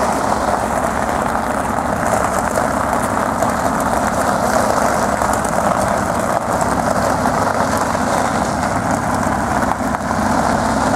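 Aston Martin sports cars' engines running at low speed as the cars roll past one after another, with a steady crunch of tyres on gravel.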